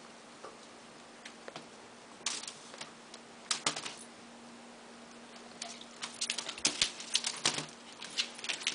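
Scattered light clicks and clattering from a corgi puppy and a kitten scuffling after a feather wand toy around a wicker basket, in small clusters about two and three and a half seconds in and coming thick and fast from about six seconds on. A faint steady low hum runs underneath.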